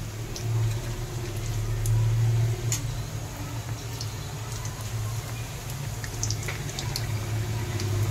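Bread pakoras deep-frying in hot oil: a steady sizzle with scattered small pops and crackles of spattering oil, over a low steady hum.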